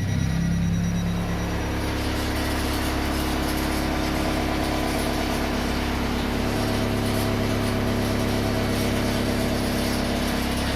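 Hyundai Santa Fe DM idling cold in Drive at a standstill, making a steady droning hum that starts as Drive engages, with a fainter higher whine joining about four seconds in. The abnormal cold-engine noise shows only in Drive, not in reverse, neutral or park, and goes away once the engine is warm.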